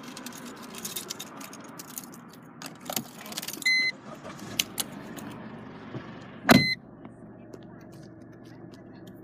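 Car cabin sounds: scattered clicks and handling noise over a steady low hum, with two short electronic beeps, one about four seconds in and a louder one about six and a half seconds in that comes with a sharp knock.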